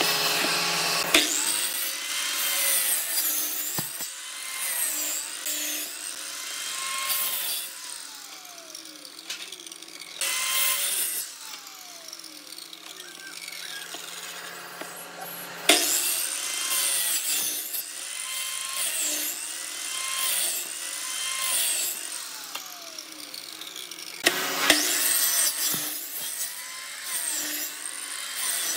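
Wood being worked by hand in repeated back-and-forth strokes, like sawing, broken by a few sharp knocks.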